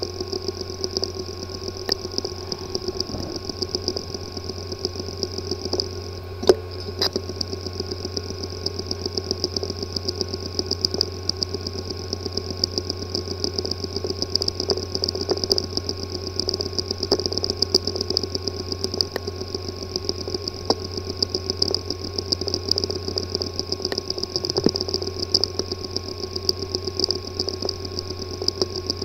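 Hard disk drive with a physically damaged disk assembly, running with a steady hum and whine and rapid, irregular ticking. Two louder clicks come about six and a half and seven seconds in. The clicking is a symptom of a damaged head/disk assembly.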